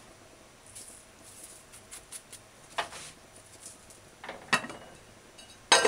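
Light taps and clicks of a salt shaker and an aluminium pot being handled, then near the end a loud metallic clank as the aluminium lid goes onto the pot.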